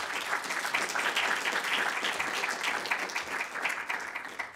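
Audience applauding: many hands clapping in a dense, steady patter that dies away at the very end.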